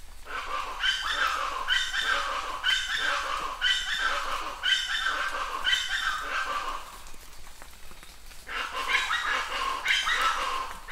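An animal calling over and over, about once a second, each call sliding down in pitch. The calls stop for a second or so after about seven seconds, then start again.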